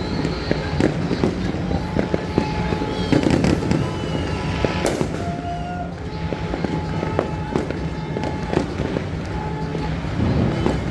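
Firecrackers and fireworks going off in many rapid, irregular cracks and pops over a steady low drone.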